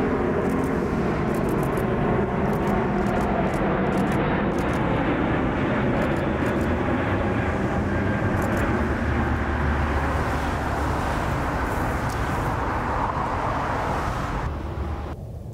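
Airbus A380 jet engines running loud and steady, a broad rushing noise over a low rumble, easing off near the end.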